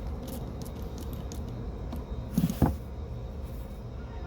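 Light metallic clicks and clinks of starter-motor parts being handled during disassembly, with one louder short scrape and clunk about two and a half seconds in, over a steady low hum.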